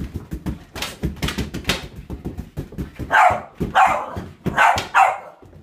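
Boston Terrier barking four times in quick succession in the second half, after a run of quick taps and thumps during play.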